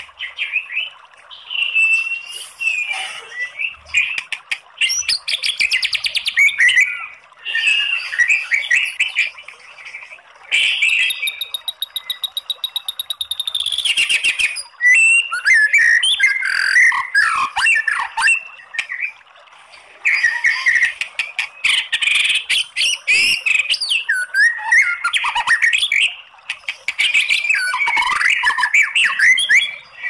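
White-rumped shama singing a varied, continuous song of whistled phrases, quick pitch glides and chattering notes, broken by short pauses. About eleven seconds in comes a long, rapid run of evenly repeated notes lasting some three seconds.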